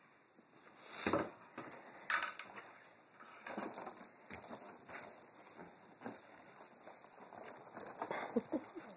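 Rustling and bumping of a fabric lampshade being handled and pulled over a toddler's head, with two sharper knocks in the first couple of seconds and scattered rustles after.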